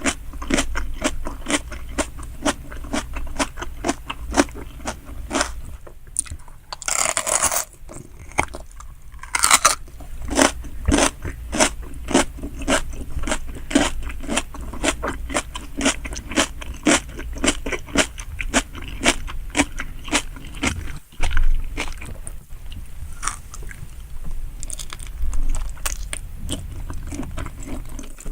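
Close-miked chewing and biting of salmon sushi: a dense run of quick mouth clicks and crunches, with a longer rustling burst about seven seconds in and another shortly after nine seconds.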